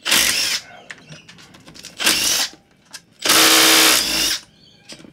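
Cordless impact driver (rattle gun) undoing the rocker cover bolts on an outboard engine, in three bursts: a short one at the start, another about two seconds in, and a longer, louder one of about a second near the end.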